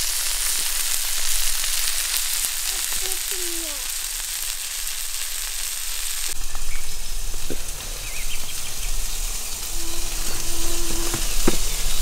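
Meat frying in oil in a pan on a Hobo wood stove, a steady sizzling hiss.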